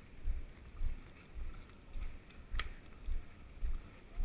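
Running footsteps on a hard walkway, heavy low thumps about two a second. One sharp click about two and a half seconds in.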